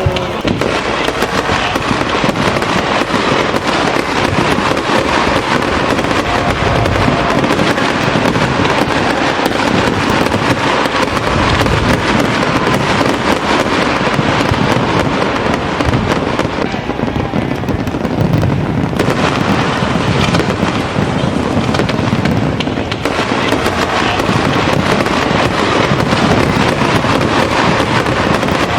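Fireworks display: many shells bursting in quick succession, a dense, continuous run of bangs and crackles.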